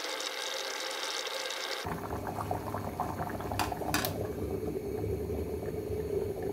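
Bean curry bubbling at the boil in an aluminium pot, with a steady tone that cuts off about two seconds in. An aluminium lid is set on the pot with two sharp metallic clinks a little after three and a half seconds.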